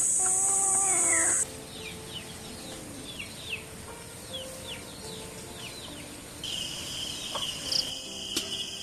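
Farmyard insect and bird sounds. A loud high insect buzz cuts off about a second and a half in, with a chicken calling under it. Short chirps follow several times, and a steady cricket-like trill starts near the end, with one sharp click.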